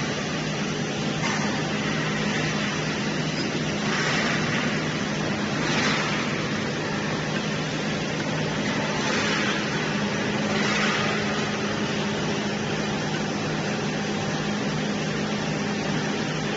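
3D CNC wire bending machine running: a steady low hum with a short burst of hiss every few seconds.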